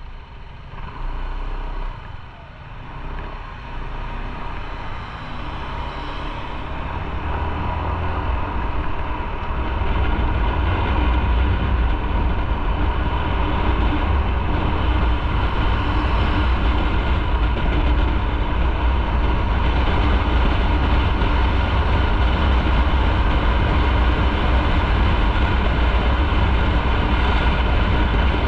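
Motorcycle riding on the road, its noise growing over the first ten seconds or so as it gathers speed, then holding steady and loud.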